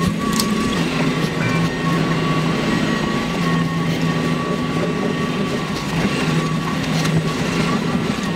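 Laser cutter at work: a steady hum with a thin high whine over it, and a lower motor drone that stops and starts every second or two as the cutting head moves between cuts.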